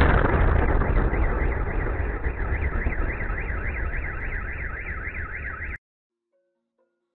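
A deep rumble from an explosion dies away slowly, while a car alarm wails, warbling up and down about three times a second; both cut off suddenly near the end.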